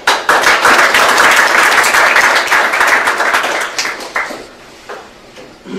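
Audience applauding, a dense patter of many hands clapping that starts suddenly, stays strong for about four seconds, then dies away.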